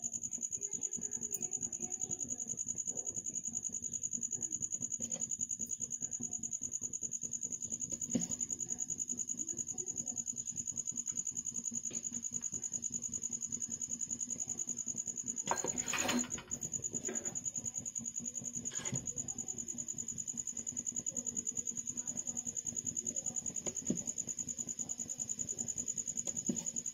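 Aluminium idli plates and a ladle knocking and clinking against metal while batter is spooned into the molds and the plates are stacked, with one louder clatter about halfway through. A steady high-pitched whine and a low hum sit underneath.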